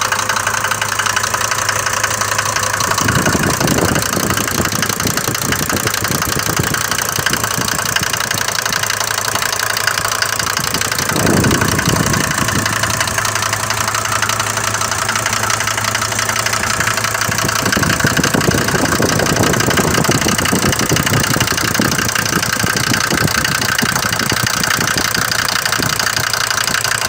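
Mercedes diesel engine running cold in the morning with a loud, rapid knocking/ticking; the low end of the engine sound swells three times, about three seconds in, around eleven seconds, and from about eighteen to twenty-one seconds. The mechanic says these Mercedes diesels do have this ticking, but not to this degree.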